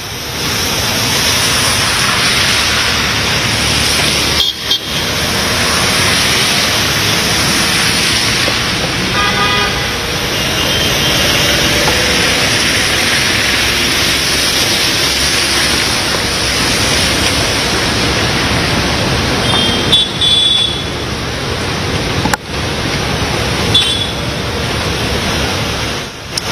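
Traffic on a flooded street in heavy rain: a steady rush of rain, water and passing vehicles, with several short car-horn toots about nine to twelve seconds in and again around twenty and twenty-four seconds in.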